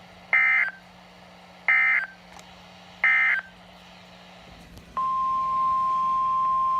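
Emergency Alert System SAME data tones: three short, harsh warbling bursts about 1.4 seconds apart, the end-of-message code that closes the broadcast warning. About five seconds in, a steady, loud NOAA Weather Radio 1050 Hz warning alarm tone starts, announcing the next alert.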